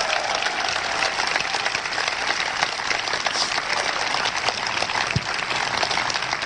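Large crowd applauding, many hands clapping at once in a steady, dense patter.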